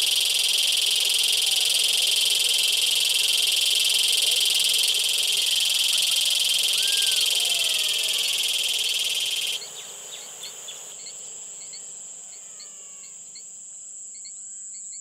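Night chorus of insects and frogs: a loud, dense, steady high-pitched buzzing with scattered frog calls beneath it. About two thirds through, the chorus drops away suddenly, leaving a single steady high insect trill with chirps repeating about twice a second.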